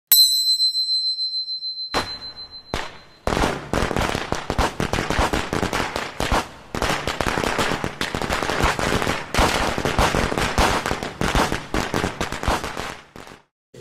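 A single high, bell-like ding that fades out over about two seconds, then a string of firecrackers going off in a rapid, uneven run of sharp pops lasting about ten seconds and dying away near the end.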